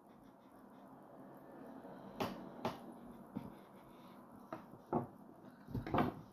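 A few light knocks and clicks of kitchen handiwork as rolled-out dough is cut into squares on the counter, about six sharp taps spread over the second half.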